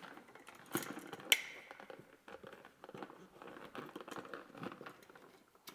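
Stiff solid copper wires being handled and bent by hand into spring loops, making small clicks and rustles, with one sharp metallic tick about a second and a half in that rings briefly.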